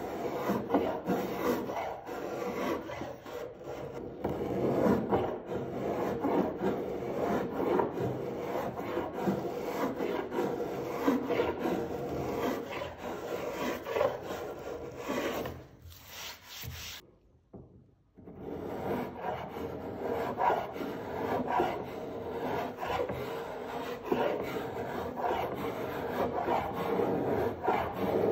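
A spokescraper scraping English ash with the grain, taking fine shavings: a run of quick, rasping strokes, with a pause of about two seconds a little past halfway.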